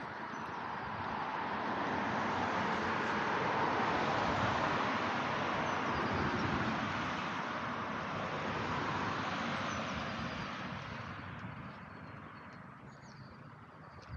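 Road traffic passing on the street: tyre and engine noise swells, peaks a few seconds in, then fades away. Faint bird chirps come through near the end.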